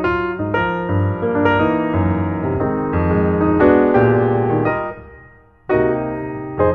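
Solo piano music playing a slow melody over chords; the notes die away about five seconds in before the next phrase starts.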